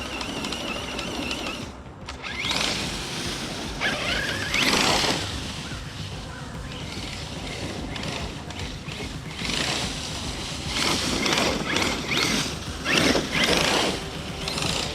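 Arrma Kraton EXB RC monster truck driving in bursts: its brushless motor whine rises with each throttle punch over the noise of the tyres and drivetrain. Under load the drivetrain makes a grinding noise that the driver suspects comes from a failing rear differential.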